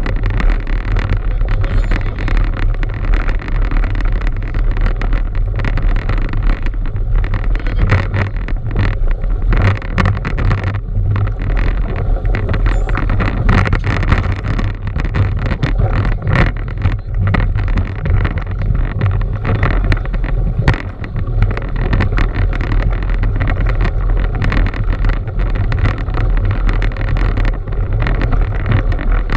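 Wind buffeting the microphone of an action camera carried on a mountain bike riding over snow, a loud steady rumble with many small knocks and rattles from the bike.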